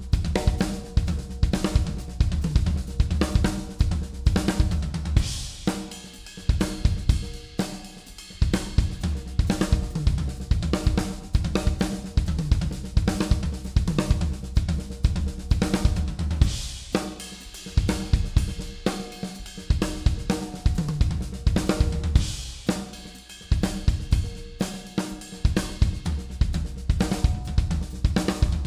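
Drum kit played live: a groove on kick, snare, hi-hat and cymbals moving into and out of tom fills built from right-left-left-kick and right-left-kick stickings, with short dips in the playing several times.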